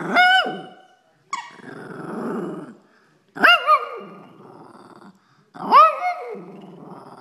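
Shih Tzu giving three sharp, high-pitched barks about every two to three seconds, with growling between them: demand barking for her toy.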